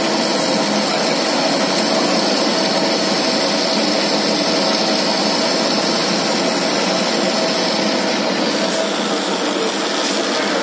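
Lathe running steadily: an even machine noise with a steady hum and a high whine, the whine fading near the end.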